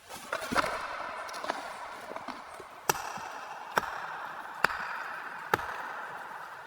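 Wood being chopped: six sharp strikes at an even pace of about one a second, over a steady hiss that fades toward the end.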